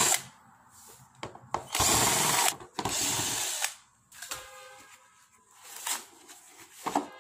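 Electric screwdriver running in short bursts, backing out the screws of an induction cooker's casing, followed by light clicks and knocks of the opened parts being handled.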